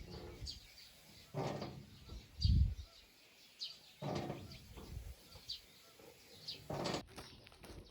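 Birds chirping, short high calls about once a second, with a few louder short noises and a low thump about two and a half seconds in.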